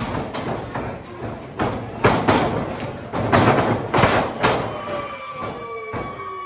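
Wrestlers' bodies hitting the ring's mat and boards, a series of heavy thuds as one wrestler is taken down.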